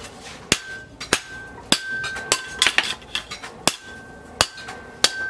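Hand hammer striking red-hot leaf-spring steel on an anvil, forging a billhook blade. About ten blows come at a steady pace, roughly one every half second or so, and most leave a high ringing tone from the anvil.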